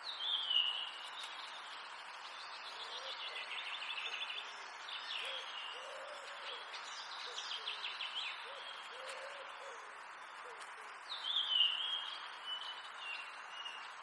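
Wild birds singing over a steady background hiss. Short high warbling and trilling phrases come at the start and again about eleven seconds in, with more in between. Low hooting or cooing calls come through the middle.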